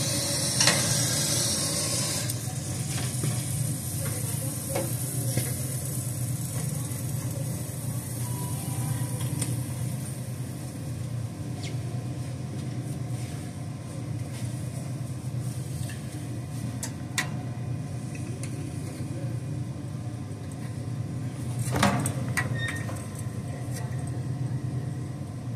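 Small-tip brazing torch flame burning steadily with a low rush and hiss while it heats a copper return bend on a refrigeration evaporator coil for a silver-braze leak repair. A few light clicks, and a short louder knock about 22 seconds in.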